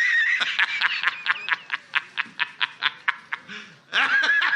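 High-pitched, squeaky snickering laugh: a very high wavering squeal breaks into a fast run of wheezy pulses, about six a second, that slowly fade. Near the end it starts again with another squeal and a new run of pulses.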